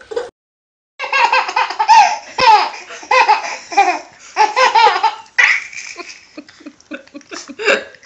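A baby laughing hard in repeated bursts, the laughs breaking into short quick pulses near the end, after a brief silent gap near the start.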